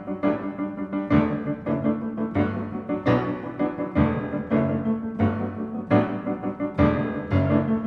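Piano music with a steady run of notes struck several times a second.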